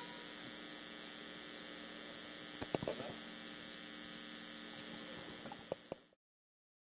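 Steady electrical mains hum with hiss in the recording, broken by a few light knocks about three seconds in and again near the end, then the audio fades out to silence.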